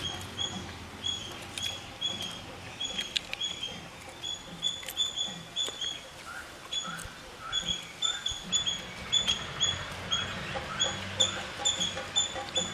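A small animal chirping: short, high-pitched chip notes repeated two or three times a second, with a few lower notes mixed in partway through.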